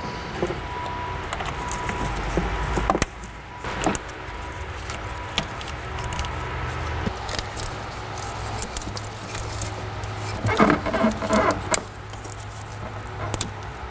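Intake manifold being worked down into a Mini Cooper N14 engine bay: scattered light knocks, clicks and rattles as it bumps against the engine. A denser clatter comes about ten and a half seconds in.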